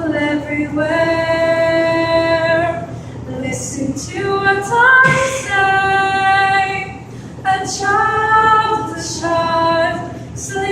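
A choir of female student voices singing a cappella, in long held notes with short breaks between phrases.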